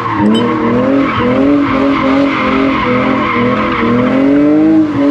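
BMW E46 engine revving, its pitch rising and falling as the throttle is worked, with the rear tyres squealing as they spin and slide on a welded differential, heard from inside the cabin.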